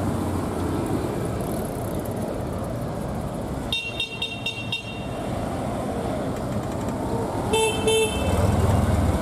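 Classic-car horns tooting over the low rumble of slowly passing cars: a quick run of about five short, high toots about four seconds in, then two more toots near the end.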